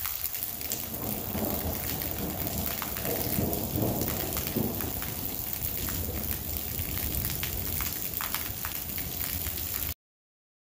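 Heavy rain hissing steadily, with many sharp ticks of drops striking close to the microphone, and a low rumble of thunder swelling and fading in the first half. The sound cuts off abruptly near the end.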